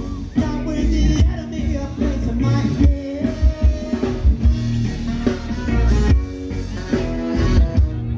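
Live band playing: a singer over drum kit, bass and guitars.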